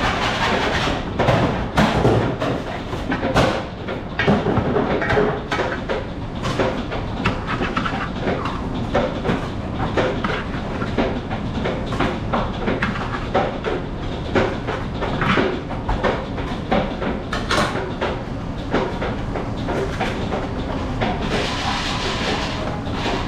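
Busy kitchen noise: a steady mechanical rumble with frequent, irregular clanks and knocks of utensils, pans and equipment.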